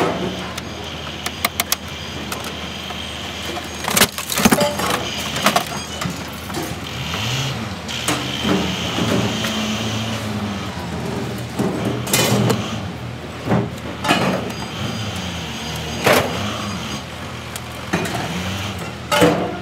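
Sharp metal clanks and knocks from scrap being handled in a ute's tray, spaced irregularly. About halfway through, an engine rises and falls in pitch for a few seconds.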